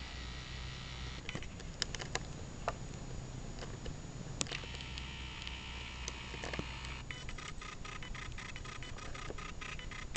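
Clicks and scrapes of a thin metal tool picking barnacles off a small sea turtle's shell, over a steady low hum. A quick, even run of ticks comes in about seven seconds in.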